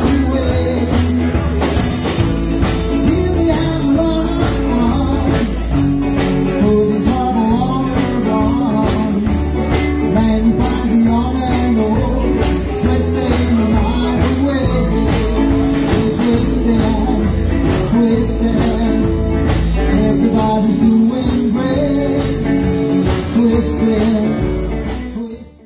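A band playing fifties-style rock and roll, with bass, guitar and a moving melody line over a steady beat; the music stops just before the end.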